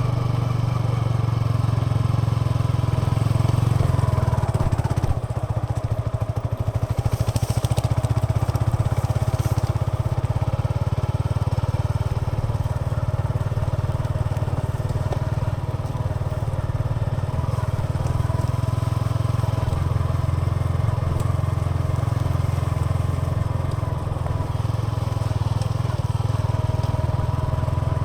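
Yamaha XSR 155's single-cylinder engine and exhaust running steadily under way, with a low, even rumble that eases briefly about five seconds in.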